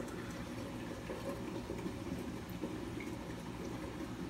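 Steady hum and water noise of a saltwater reef aquarium's running pumps and circulating water.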